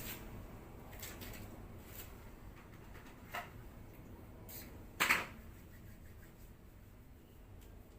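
Faint handling noises: scattered small clicks and rustles, a short sharper one a little after three seconds and a louder brief rustle or scrape about five seconds in.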